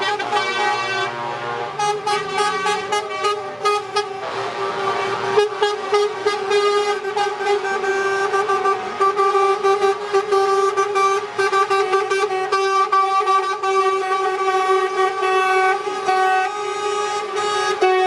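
Lorry air horns sounding together in long held blasts, several pitches overlapping into a continuous chord as a truck convoy passes.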